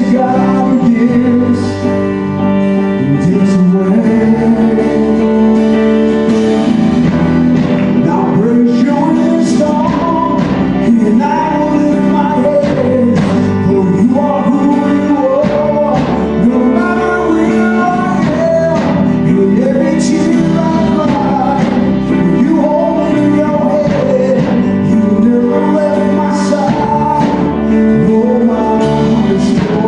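Gospel worship song: voices singing a melody over steady instrumental chords.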